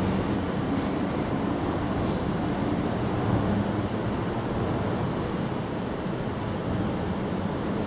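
Steady low rumble of distant vehicle noise, with a faint low hum that fades out about two seconds in.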